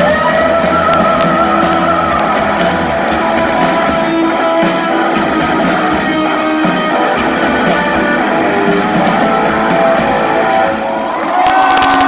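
Rock band playing live in an arena, heard from the audience: distorted electric guitar, bass and drums through the PA, with sustained guitar notes. Near the end the music dips briefly, then the crowd's cheering swells over a held note.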